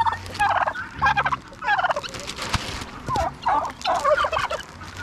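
Turkey gobbling repeatedly, several quick warbling gobbles in a row.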